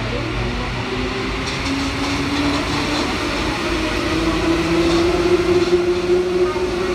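MP73 rubber-tyred Paris Métro train running, with a steady rumble and a motor whine that rises in pitch in steps, loudest in the second half.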